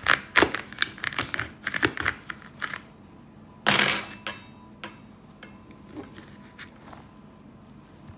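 Knife tapping and scraping against an aluminium foil pie pan while cutting through a cheesecake: quick clicks over the first few seconds, a louder scrape about four seconds in, then only a few faint ticks.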